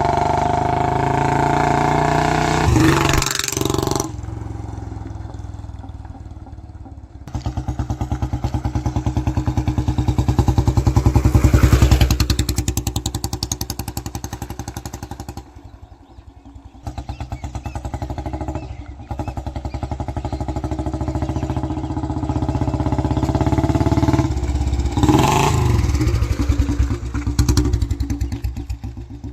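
Old Royal Enfield Bullet 350 single-cylinder engine, a 1999 model with a heavy 14 kg crank and a big Punjab silencer, giving its heavy thumping exhaust beat. The engine swells up to a peak partway through, drops off briefly, then runs on steadily.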